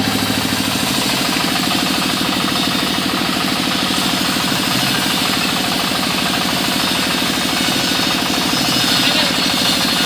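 Sawmill's large circular rip saw running and cutting lengthwise through a long wooden board, a loud steady rasping with a fast even pulse.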